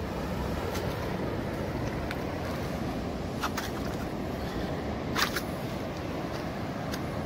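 Steady rush of wind and ocean surf, with a few short sharp clicks, the loudest about five seconds in.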